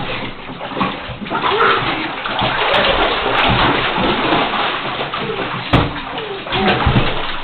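Water splashing and sloshing hard in a bathtub, continuously.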